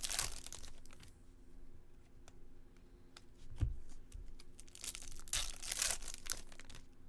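Foil trading-card pack wrappers crinkling and tearing, in two spells near the start and near the end, with scattered light clicks and a soft thump about halfway through.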